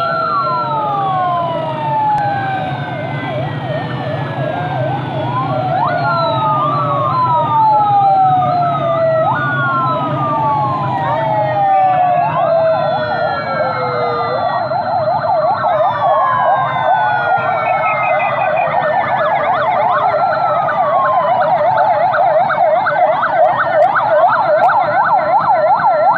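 Several police sirens sounding at once from a passing convoy: overlapping wails that rise and slowly fall, joined by a fast yelp that grows stronger about halfway through. A low hum of engines runs underneath.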